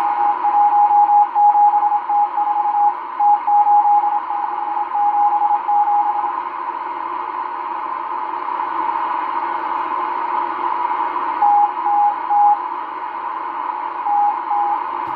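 Morse code numbers from the M12 numbers station, heard on a Realistic DX-394 shortwave receiver as a single beat tone keyed in dots and dashes over steady band hiss. The tone sends a quick run of characters for about six seconds, falls silent, and then sends a few more marks near the end.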